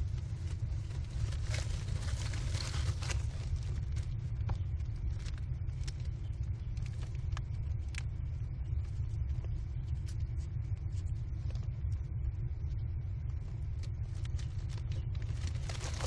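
A steady low rumble, with scattered clicks and scratching from American kestrel nestlings shuffling on the wood-chip floor of the nest box. There are busier bursts of scuffling about two seconds in and again near the end.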